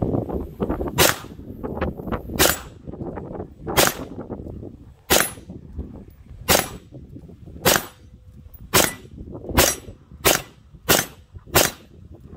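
Custom AR-15 rifle firing about eleven single shots. They are spaced about a second and a half apart at first and quicken to nearly two a second near the end, with a low rumble between them.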